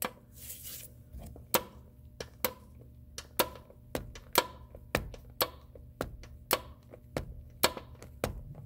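Torque wrench being ratcheted and pulled on a starter motor mounting bolt, giving sharp metallic clicks roughly once or twice a second as the bolt is brought up to its torque spec of about 35 foot-pounds.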